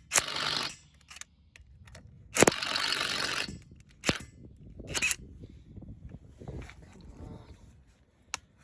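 Impact gun hammering on a van's over-tightened lug nuts in two bursts, the second about a second long, then a couple of short sharp clacks. The gun is not strong enough to break the nuts loose.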